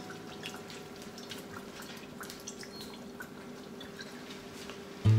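Coconut milk simmering in a frying pan with fish, giving scattered small bubbling pops and drips. Faint held notes of background music linger underneath.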